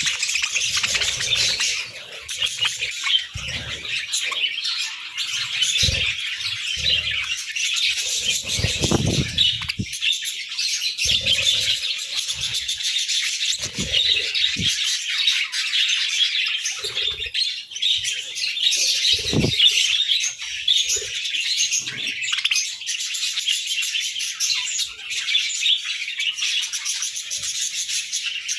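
A flock of budgerigars chattering and chirping without pause, with scattered soft thumps now and then.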